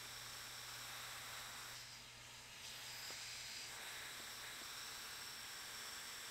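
Faint steady hiss with a low hum: quiet room tone, with no drilling heard.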